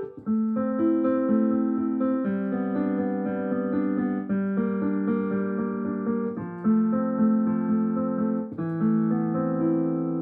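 Piano music: chords and single notes struck in a steady, unhurried run, the harmony changing every second or two.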